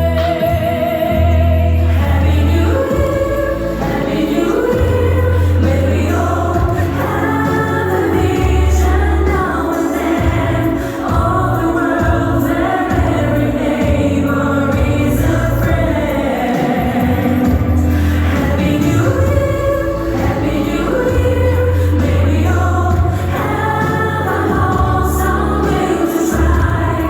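Choral singing with accompaniment: several voices singing over held bass notes.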